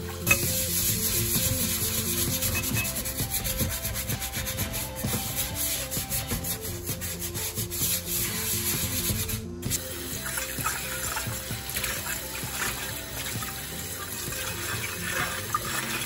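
Dishes being washed by hand in a stainless steel sink: a soapy sponge rubbing and scraping on bowls and a pan, with tap water running at the start and a brief break about halfway.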